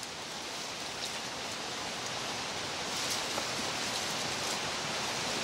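Steady rush of a shallow mountain river running fast over boulders and rapids.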